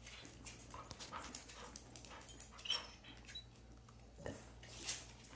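Siberian husky making faint, short whines, begging for its dinner.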